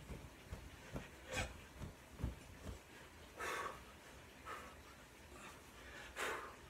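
Jumping jacks: feet landing on a carpeted floor with dull thumps about twice a second for the first three seconds, with heavy breathing and puffed exhales from the exertion.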